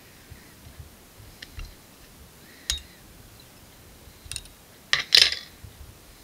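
Whip-finish tool and thread being worked at a fly-tying vise to tie off the fly's head. There are a few scattered light clicks, then a short louder clatter about five seconds in.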